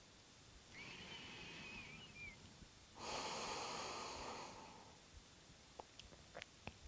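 A woman's slow, faint breathing at rest: a softer breath with a slight nasal whistle, then a louder, longer airy breath. A few small clicks come near the end.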